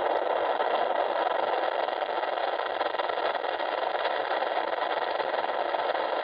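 HobbyZone Carbon Cub S2's electric motor and propeller at takeoff power, heard through the airplane's FPV audio feed and played back from the monitor: a steady, even noise without a clear pitch.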